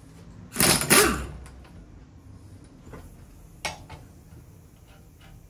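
Socket wrench undoing the top nut of a MacPherson strut held in a spring compressor: a loud creaking burst under a second long as the nut breaks loose, then a single click a few seconds later.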